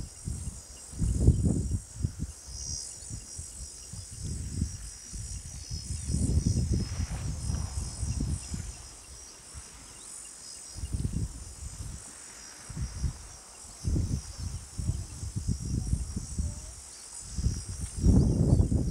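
A steady, high-pitched chorus of insects droning without a break, with irregular bouts of low rumbling that come and go throughout and are loudest at the very start and near the end.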